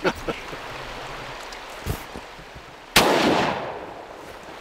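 A single shotgun shot about three seconds in, sharp and loud, dying away over about a second. A fainter, duller thump comes about a second before it.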